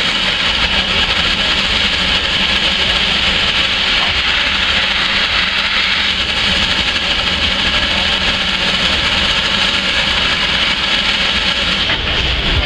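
1916 Erie Type B steam shovel working under steam: a steady hiss of escaping steam with a low rumble of its engines underneath.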